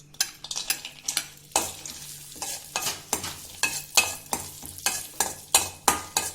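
Cashews and raisins frying in hot ghee in a kadai, sizzling, while they are stirred with repeated scraping strokes against the pan, about two or three a second. The sizzle grows louder about a second and a half in.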